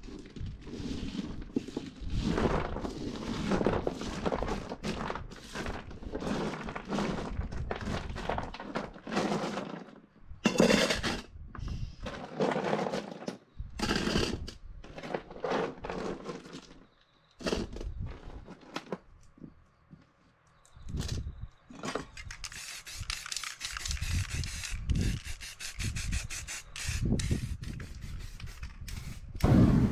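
Small stones being scraped and picked off a spray-painted board and rattled into a metal can, with irregular clattering and knocks. Near the end there is a short hiss of an aerosol spray-paint can.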